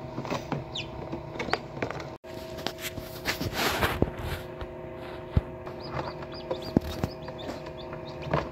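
Newly hatched chicken chicks cheeping in short, high peeps, over the steady hum of the incubator, with a brief rustle and a few light taps.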